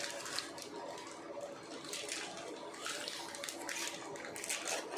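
Welding arc from an EDON MIG 170S 2-in-1 welder, crackling and hissing in irregular surges over a faint steady hum.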